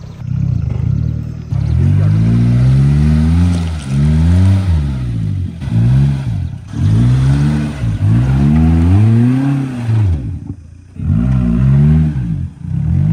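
Modified Maruti Gypsy's engine being revved up and eased off over and over as the 4x4 is driven off-road. The engine note rises and falls in about seven surges, with a short lull near the end.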